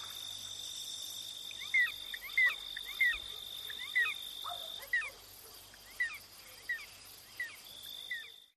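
A series of about ten short, high animal calls, each rising then falling in pitch, one every half second to a second, growing fainter toward the end, over a steady high whine.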